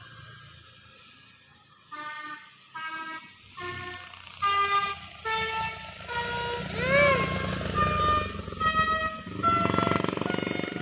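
A bus's telolet basuri musical horn playing a quick tune of short notes, starting about two seconds in. One note bends up and back down midway, and the loudest note is held near the end. The bus's engine runs low underneath.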